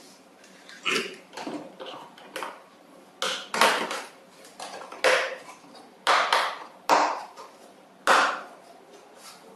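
Hollow plastic tricycle body shell knocking and clacking as it is handled and pressed onto its base by hand: a series of sharp, irregularly spaced knocks, the loudest in the second half.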